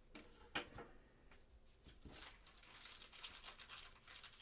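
Faint rustling and a few soft clicks of trading cards being handled and set down on a table.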